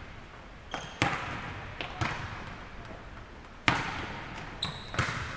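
Volleyballs being struck and bouncing on a hardwood gym floor: about seven sharp slaps, each followed by the echo of the large hall. The loudest comes nearly four seconds in.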